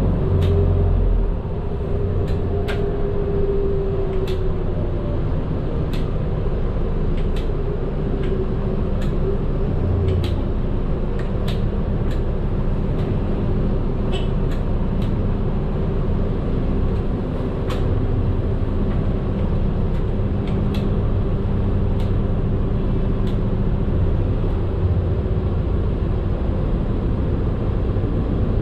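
Medium bus being driven, heard from inside the driver's cabin: a steady engine and road drone, with short sharp clicks from the cabin at irregular moments.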